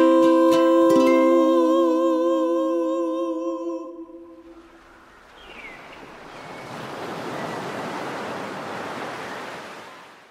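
The end of a sung song: a held vocal note with vibrato over a few ukulele strums, fading out over the first few seconds. Then ocean surf washes in and fades away near the end.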